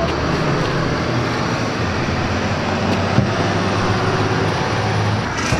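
Steady rumble of road traffic, with one short knock a little past three seconds in.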